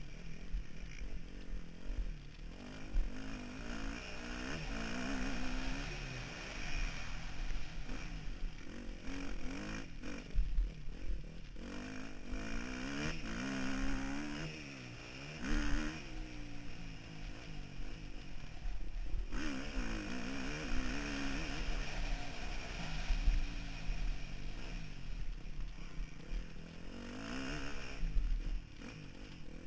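Motocross bike engine heard from an onboard camera, revving up and down again and again as the rider opens and closes the throttle around the track, with a few knocks from the bike over the bumps.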